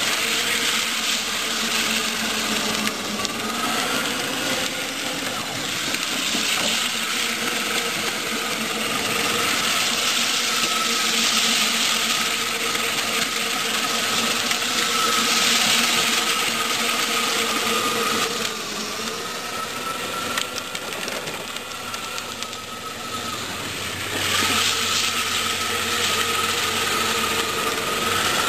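Electric drive motors of a 24-volt Power Wheels ride-on toy Jeep whining steadily, with its hard plastic wheels rolling noisily on asphalt. The sound grows louder as the Jeep drives close by, drops for a few seconds, then rises again near the end.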